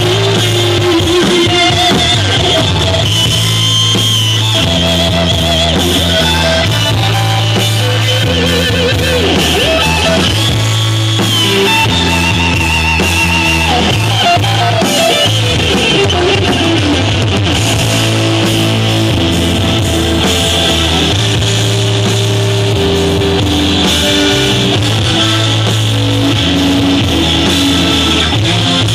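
Live band playing an instrumental passage: electric guitar, bass guitar, drums and keyboards. About halfway through, a melodic line slides down in pitch over a few seconds.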